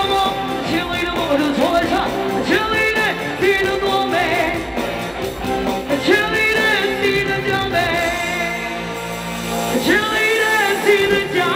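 A woman singing a pop song through a microphone and PA, with live electronic keyboard backing. Some held notes waver in vibrato.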